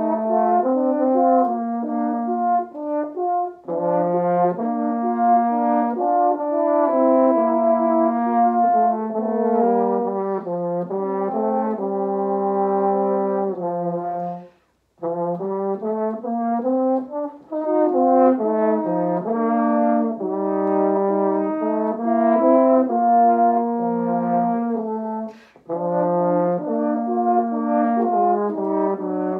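French horn duet: two horns play sustained notes in two parts, moving together from note to note. The music breaks off briefly about halfway through, then resumes.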